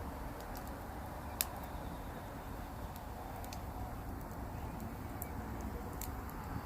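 Wood fire crackling: a steady low rush with scattered sharp pops, the loudest about a second and a half in.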